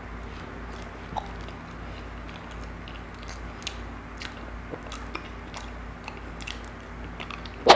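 Close-miked mouth sounds of a person biting and chewing a ripe banana: soft, wet smacks and small clicks scattered throughout, over a steady low hum. A sudden loud sound cuts in at the very end.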